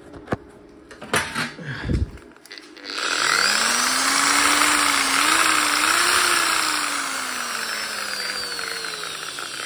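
A few handling clicks and knocks, then about three seconds in an electric drill starts up, fed 230 V from an old 24 V inverter. Its motor whine rises quickly in pitch, holds with slight wobbles, then slowly sinks in pitch as it keeps running.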